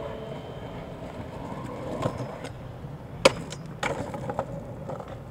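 Pro scooter wheels rolling on rough, cracked asphalt, with several sharp clacks of the scooter hitting the ground, the loudest about three seconds in.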